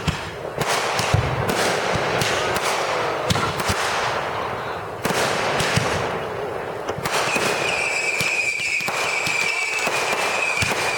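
Fireworks going off: a dense run of sharp bangs and crackling. About seven seconds in, a steady high whistle joins the bangs and keeps going.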